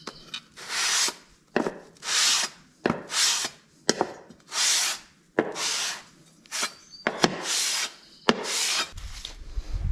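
Aluminium cylinder head of a Briggs & Stratton 8 hp engine pushed back and forth on 400-grit sandpaper laid over glass, giving a rasping stroke about once a second with short sharp ticks between some strokes. The head's gasket face is being lapped flat after a head-gasket failure, with the shiny spots showing where the high spots are being cut down.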